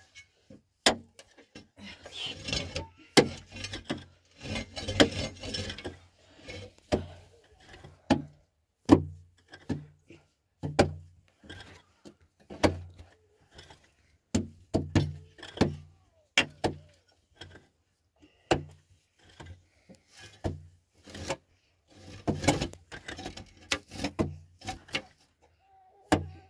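A long run of irregular knocks, clicks and clatters, as of hard objects being handled or set down.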